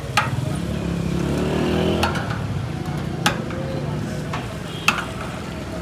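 A metal ladle clinks sharply against large aluminium pots and plates about four times while curry is served, over a motor vehicle engine passing in the first couple of seconds and background voices.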